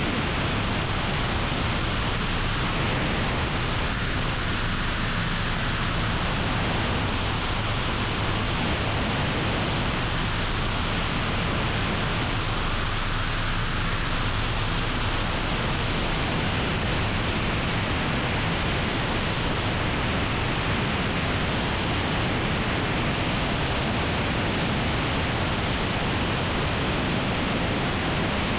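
Helicopter in steady flight: an even rushing noise of engine and rotor with a faint low hum underneath, unchanging throughout.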